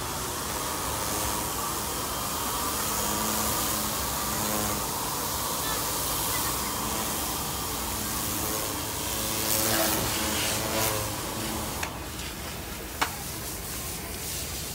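High-pressure washer jet spraying water across a truck's flatbed deck: a steady hiss with a machine hum underneath. The spray stops about twelve seconds in, and a single sharp knock follows shortly after.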